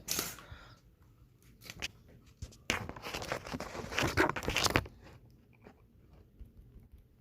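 Scattered clicks, then about two seconds of loud crackling, rustling noise mixed with clicks, dying away to faint noise.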